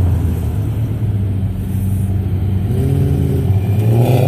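Car engines as cars drive past: a steady low engine note, then from about three seconds in an engine revs up, its pitch rising as the car accelerates away.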